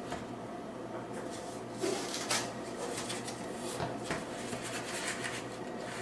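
A wooden cutting board and a sheet of cardboard being handled and laid down on a countertop: a few knocks and rustles about two seconds in, then lighter rubbing and sliding.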